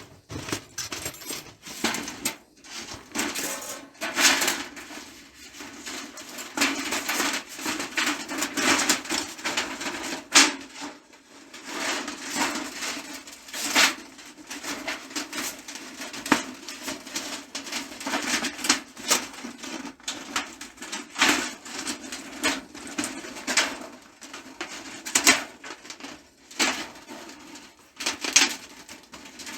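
Irregular clinking, rattling and scraping of thin titanium camp-stove parts being handled and fitted together.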